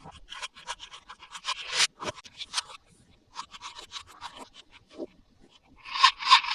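Toy packaging scratched and rubbed by hand: rapid short scratchy strokes, several a second, with a brief lull about three seconds in and louder strokes near the end.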